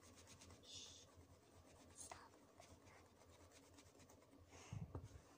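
Faint rubbing and light scratching of hands working Play-Doh against a wooden table, with a soft knock near the end.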